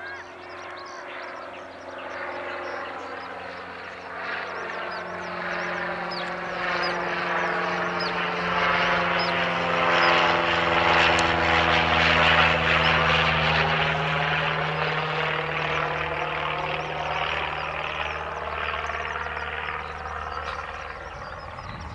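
An aircraft engine passing low overhead: its drone builds over about ten seconds, peaks near the middle and then fades, its pitch sliding slowly down as it goes by.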